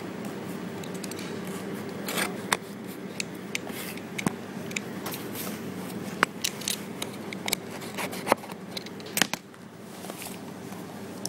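Small cardboard parts box being cut open and its paper packaging handled: a run of sharp clicks, crackles and rustles, over a steady low hum.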